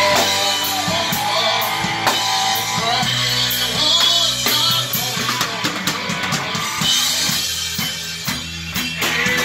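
Rock band playing in a small room: an acoustic drum kit with cymbals and bass drum keeps the beat under electric guitar and bass.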